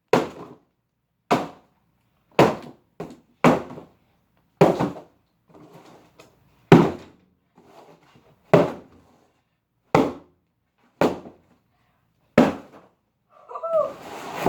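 Hammer blows on a cardboard box: about a dozen sharp strikes, roughly one a second, with a brief scraping, squeaky noise near the end.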